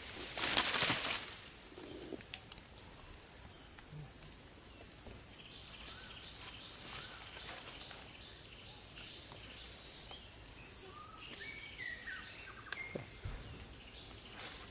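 Forest ambience: scattered short bird chirps with pitch glides in the middle and later part, over a steady high insect whine, after a brief loud noise about half a second in.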